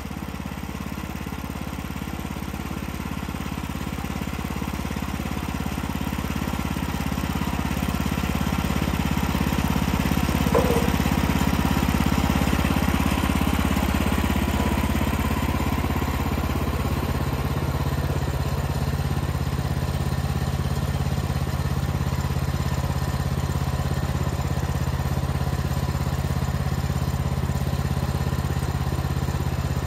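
The gasoline engine of a Woodland Mills HM126 portable band sawmill runs steadily, growing louder over the first ten seconds or so and then holding level.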